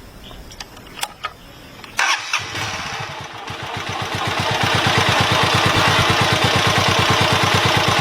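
A few light clicks, then a carbureted motorcycle engine starts about two seconds in and settles into an even idle, louder by about five seconds in. The mixture screw has just been turned richer, and the idle is a little low.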